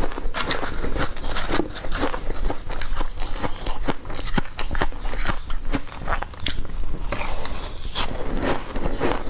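Close-miked crunching and chewing of a mouthful of crushed ice dusted with green powder: a dense run of irregular sharp crackles as the ice is bitten and broken up.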